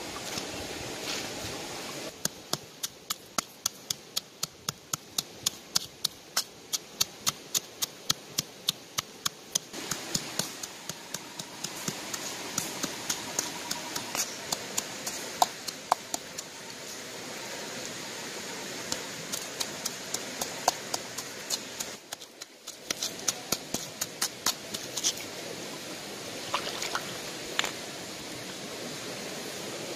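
Chillies, garlic and salt being pounded in a coconut-shell bowl: sharp, rhythmic knocks at about three a second, turning irregular about ten seconds in, over the steady rush of a shallow stream.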